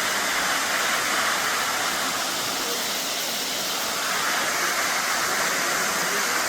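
Waterfall pouring down a rock cliff face: a steady, even rush of falling water.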